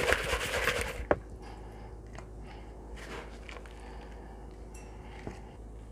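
Hands dredging raw quail in flour: soft rubbing and scraping for about a second, then a single sharp knock, then only faint scattered taps over a low steady hum.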